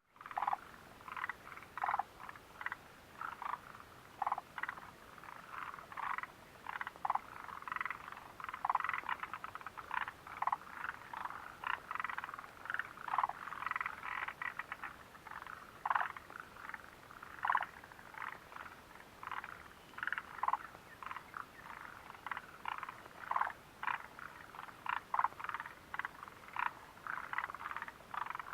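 A chorus of frogs calling, many short croaks overlapping at an irregular pace, some drawn out into quick rattling pulse runs.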